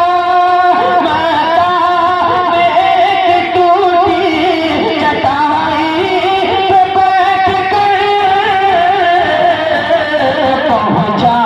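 A man singing long, wavering melismatic notes without words (a drawn-out alaap) in a devotional naat.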